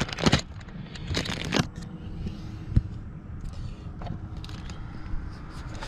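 Handling noises while working on a car door: a few short sharp clicks and brief scraping rustles, the sharpest click about three seconds in, over a low steady hum.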